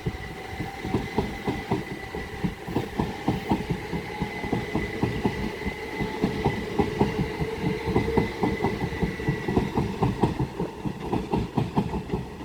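Pair of Southeastern Class 375 Electrostar electric multiple units passing through, their wheels clattering over rail joints in a rapid, continuous run of clicks. A steady high whine sounds over the clatter and fades out near the end.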